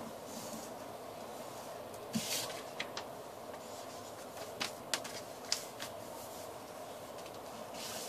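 Paper being handled and folded, with short rustles and small clicks and taps over a steady faint hum.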